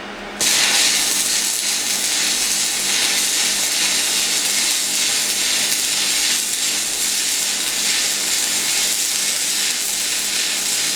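Stick-welding arc from a Zubr MOSFET inverter welder at maximum current. It strikes about half a second in and then sizzles steadily. The repaired welder holds the arc under full load without cutting out into overload protection.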